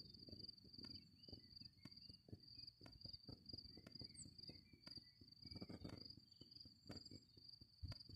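Crickets trilling: a faint, steady, high-pitched trill without a break, over a low uneven rumble of wind and handling noise on the microphone.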